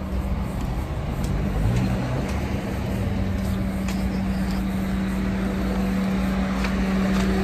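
Road traffic: a steady vehicle engine drone with a constant low hum and rumble.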